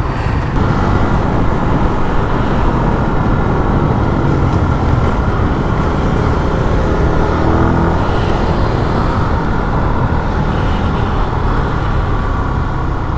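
Zontes motorcycle being ridden on the road, its engine running steadily under a dense rush of wind and road noise on the microphone.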